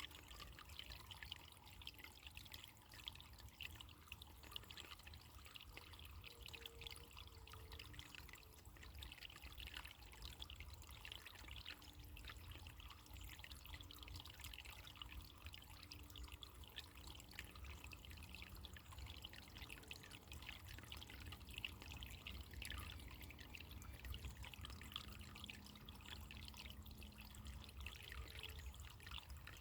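Running water trickling and splashing faintly and steadily.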